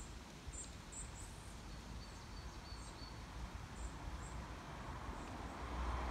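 Outdoor ambience: small birds give a few short, high chirps in the first second or so, with fainter calls later, over a low steady background rumble. A rushing noise builds up near the end.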